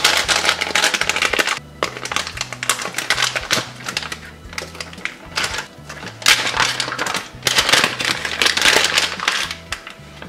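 Stiff foil-laminate MRE drink-powder pouch being gripped and torn open by hand: crinkling and crackling of the packaging in several loud bursts with sharp snaps of the tear.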